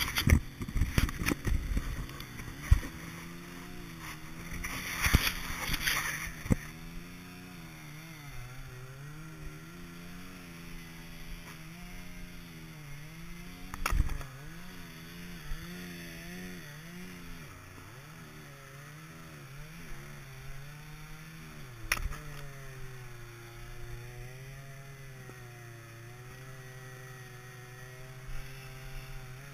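A small gasoline engine runs steadily in the background, its pitch dipping and recovering now and then as if under load. A splitting maul strikes firewood rounds with sharp knocks: several with clattering in the first few seconds, a loud one about halfway through, another about two-thirds through, and one at the very end.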